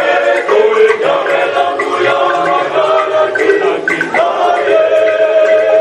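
A choir sings together, a man's voice leading. About four seconds in, a long steady note sets in and is held.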